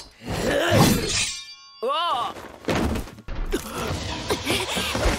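Anime fight sound effects: crashing, shattering noise, with a short bright ringing shimmer about two seconds in and further impacts after it.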